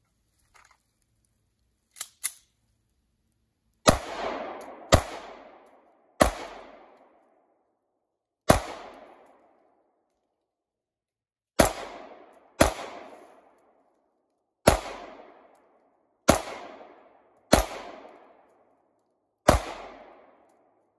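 Sig Sauer P365 XL 9mm pistol firing ten shots at an unhurried pace, about one to two seconds apart, each crack trailing off in a long echo through the woods. Two light clicks come just before the first shot.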